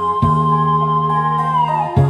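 Music: a long held melody note that slides downward near the end, over steady low chord notes that change about a quarter of a second in.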